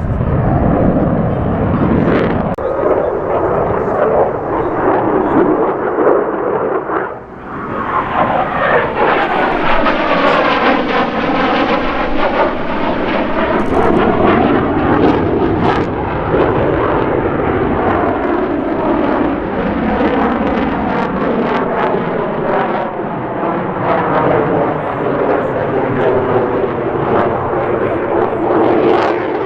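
F-16 fighter jet's engine running hard during a demonstration pass, a continuous loud jet roar. It dips briefly about seven seconds in, then takes on a sweeping, phasing rise and fall in pitch as the jet passes.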